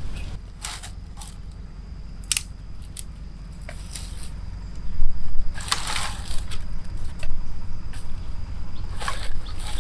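Dry twigs and branches snapping, crackling and rustling as they are gathered and handled by hand: scattered sharp cracks, with a longer crunching stretch a little past halfway and another near the end.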